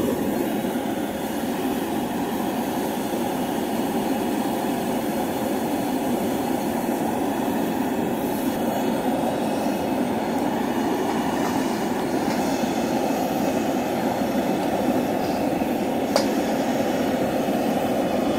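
Taiwanese-made 100,000 BTU propane wok burner running on high: a loud, steady rush of gas and flame. A single brief click about 16 seconds in.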